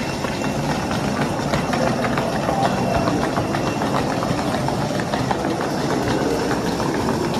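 Steady rumble of walking through a busy airport terminal corridor: footsteps and suitcase wheels rolling over the tiled floor, with a faint murmur of voices.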